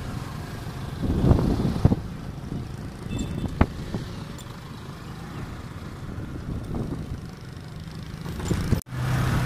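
Motorbike riding noise heard from on the bike: engine running with wind and road rumble, with two louder thumps over the first two seconds. The sound drops out for an instant near the end.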